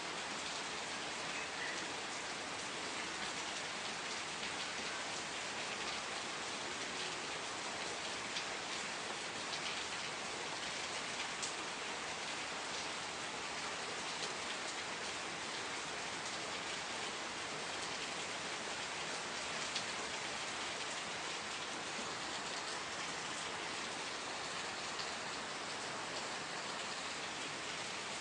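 Steady rain falling, a continuous patter with scattered louder drops.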